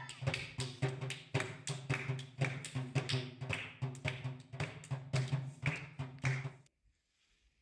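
Hands clapping in a steady rhythm, about three claps a second, over low background music; both cut off suddenly near the end.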